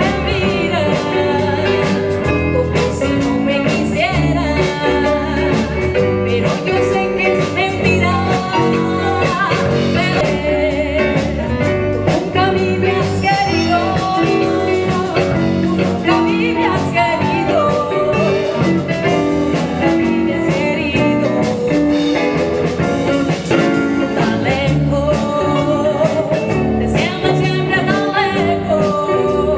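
Live band playing a song with drums and a woman's lead vocal, singing into a microphone.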